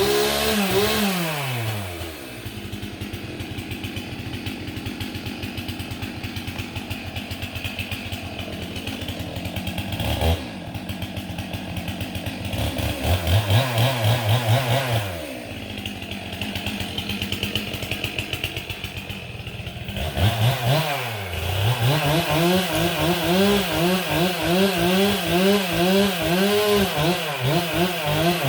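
Two-stroke chainsaw engine that drops to idle in the first couple of seconds and idles, revs up briefly around the middle, then from about three-quarters in runs at high speed with its pitch rising and falling in quick pulses.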